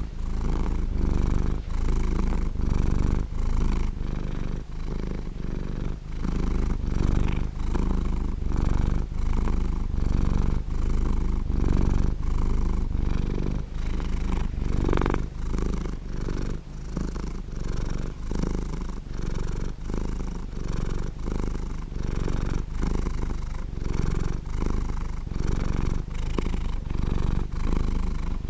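Domestic cat purring steadily and close up, the purr swelling and easing with each breath about once a second.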